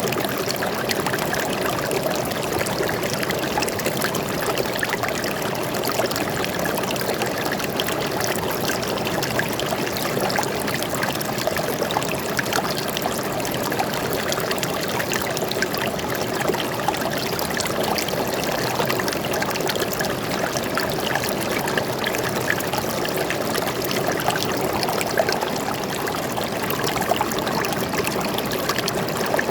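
Flowing water, steady and continuous, with a dense patter of small splashes and trickles.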